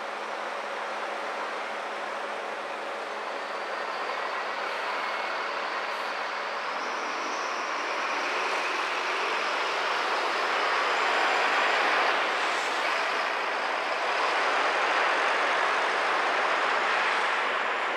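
City street traffic heard from inside a car: a steady rush of engines and tyres. It swells louder from about halfway through, as a city bus draws alongside and the traffic gets moving.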